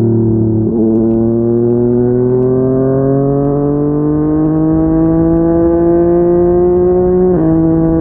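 Yamaha MT-09's inline three-cylinder engine through a Yoshimura R55 slip-on exhaust, accelerating under load. There is an upshift just under a second in, then the revs climb steadily in that gear before a second upshift near the end; each shift drops the pitch suddenly.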